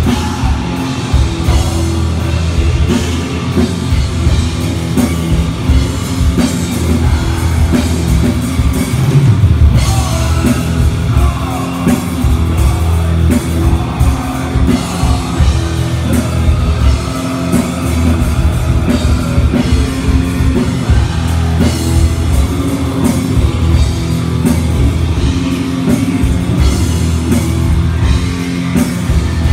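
Heavy metal band playing live and loud: distorted guitars over a pounding drum kit.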